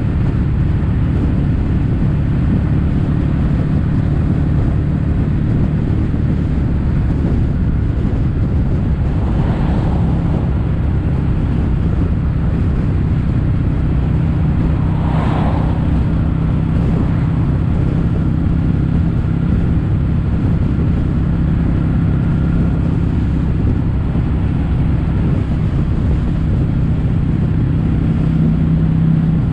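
Kawasaki W800 air-cooled parallel-twin engine running steadily through a Yamato stainless-steel Caburton-type silencer while the bike cruises. Two brief swells of noise come through about a third of the way in and about halfway.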